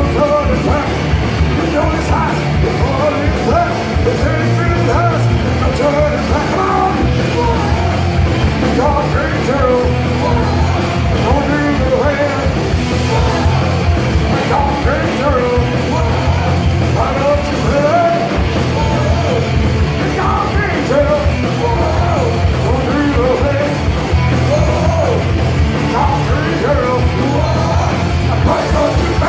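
Horror-punk band playing loud live: distorted electric guitars, bass and drums, with the singer shouting over them.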